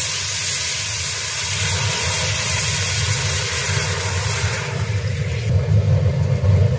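Water poured from a steel pot into a hot, oiled wok, hissing and sizzling loudly as it flashes to steam. The loud hiss drops away about four and a half seconds in, leaving a quieter sizzle over a steady low rumble.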